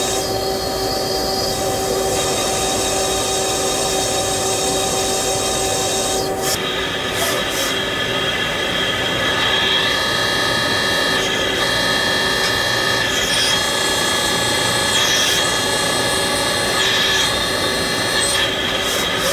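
Mazak Megaturn Smart 600M vertical turning center cutting metal: a steady machining noise with several held tones from a turning cut. About six seconds in it changes to a rotating milling cutter working the part, with a brighter, higher set of tones.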